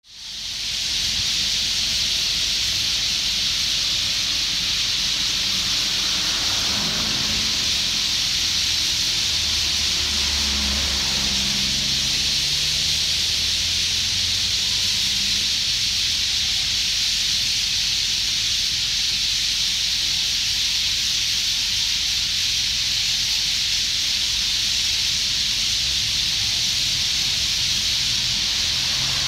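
Dense, continuous chattering of a huge flock of small birds massed in trees, thought to be sparrows. So many call at once that it blends into a steady, high, hiss-like din.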